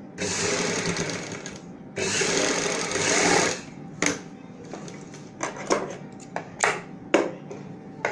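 Domestic sewing machine stitching a bias strip onto a kurti neckline in two short runs of about a second and a half each, with a brief pause between. After that come a series of separate sharp clicks and taps.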